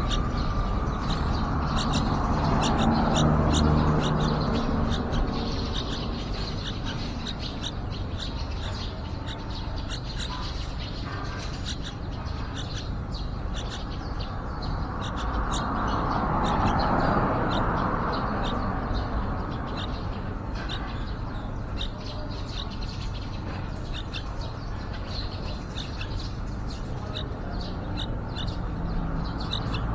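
Yellow-vented bulbul nestlings chirping: a steady run of short, high calls, several a second. Under them is a low rumble that swells twice.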